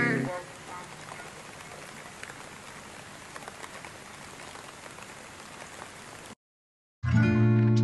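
A backing track ends, leaving a faint steady hiss with scattered small crackles. After a brief dead gap, music with a strummed guitar starts near the end.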